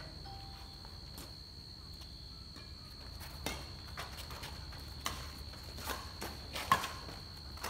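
Badminton rally: sharp racket-on-shuttlecock hits coming roughly once a second from about halfway in, the loudest near the end, with players' footsteps on the concrete court.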